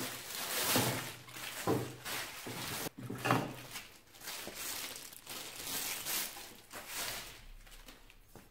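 Clear plastic wrapping crinkling and rustling as it is pulled off a lawnmower's metal handlebar tubes, with a few light knocks of the tubes being handled in the first half; the rustling thins out near the end.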